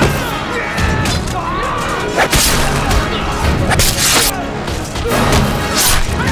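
War film battle soundtrack: men yelling through hand-to-hand fighting, with sharp blows and crashes about a second and a half apart, over dramatic music.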